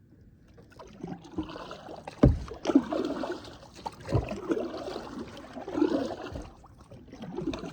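Kayak paddle strokes through water, with repeated swells of splashing and dripping, plus a few sharp thumps around two to four seconds in.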